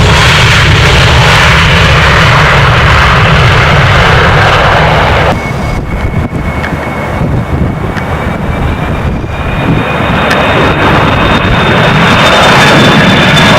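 Jet airliner engines, very loud and close. About five seconds in the sound drops sharply, and a steady high whine is heard that climbs slightly and grows louder again toward the end.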